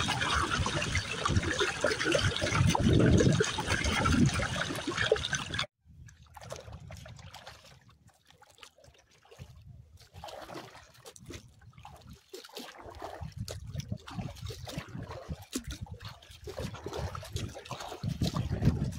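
Kayak paddle strokes splashing and trickling water, with gusty wind rumbling on the microphone. About six seconds in it cuts abruptly to much quieter water lapping against the Pelican Argo 100XR kayak's hull, which grows louder near the end.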